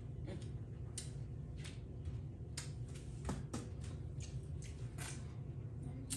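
Close-up eating sounds: irregular wet clicks and smacks of chewing saucy seafood boil food, over a steady low hum.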